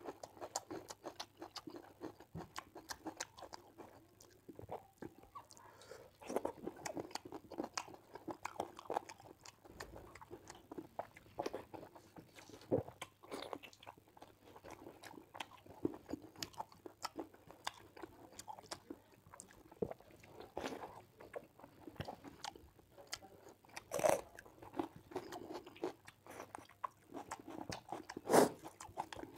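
Close-miked chewing and mouth sounds of rice and chicken curry eaten by hand: wet smacking and many small clicks, with two louder crunching bites near the end.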